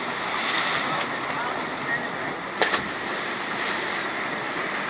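Mountain river and waterfall rushing steadily, with one brief sharp knock or splash about two and a half seconds in.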